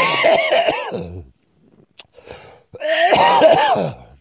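A man coughing in two loud, hacking bouts, a morning smoker's cough brought on by a drag on a cigarette just after waking.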